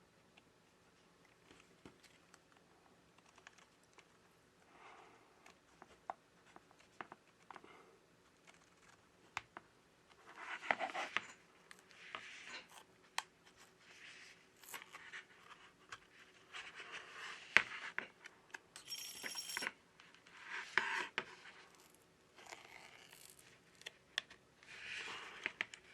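Faint scraping and tearing of a plastic pick slicing through the screen adhesive of an iPhone 11 Pro, in short strokes with small clicks and taps of the tool against the phone. A brief high-pitched tone sounds about two-thirds of the way through.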